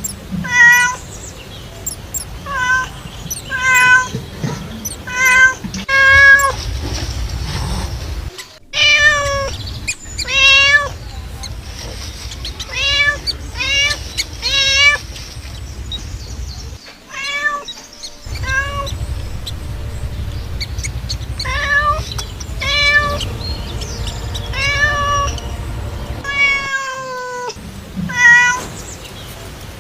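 A cat meowing over and over, short calls coming about once a second, with short gaps here and there, over a steady low rumble.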